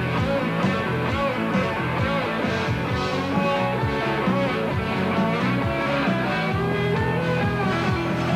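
Rock band playing live in an instrumental passage: guitar over bass and a steady drum beat, with no singing.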